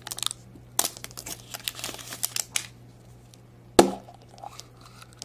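Printed plastic wrapper being torn and peeled off a Spider-Man surprise egg, crinkling in quick bursts for the first couple of seconds, then one sharp knock from the hard red plastic egg about four seconds in.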